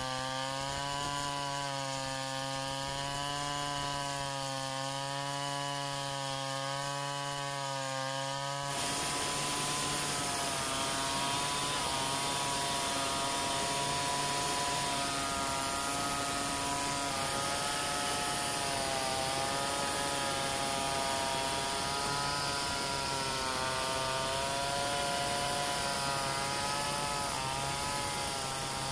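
Large two-stroke chainsaw running under load, ripping lengthwise along a log in a freehand milling cut, its engine pitch wavering slightly as the cut is fed. About nine seconds in, the sound turns closer and louder, with more hiss from the chain and flying chips.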